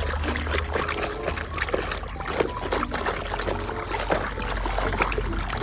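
Water splashing and trickling as a muddy toy vehicle is washed clean, with many short irregular splashes.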